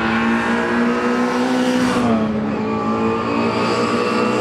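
Historic saloon racing cars with small four-cylinder BMC A-series engines running at speed on the circuit. The engine note is steady, dips about halfway through, then rises again.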